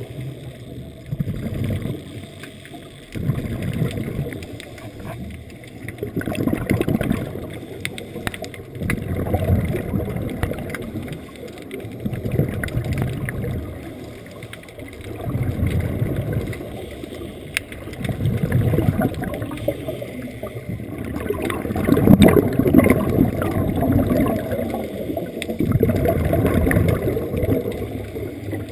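Muffled underwater bubbling and rumbling of a diver's exhaled regulator bubbles, swelling and fading every few seconds.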